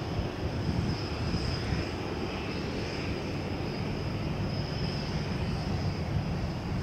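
Jet airliner engines running steadily, a low rumble with a thin steady high tone above it.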